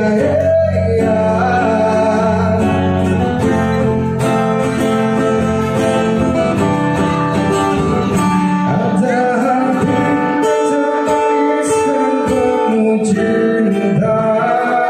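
A man singing into a microphone, accompanied by an acoustic guitar.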